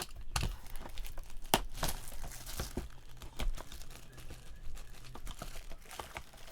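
Plastic or foil trading-card wrapping being crinkled and torn open, with irregular sharp crackles and clicks as cards are handled.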